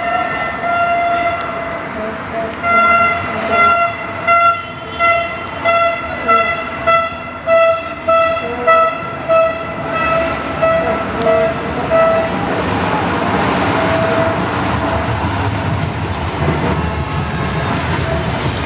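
Car horns honking in celebration: one horn sounds a steady note, then beats out a long rhythmic series of short blasts, about one and a half a second. This gives way near the middle to a dense din of distant horns and crowd noise from the streets.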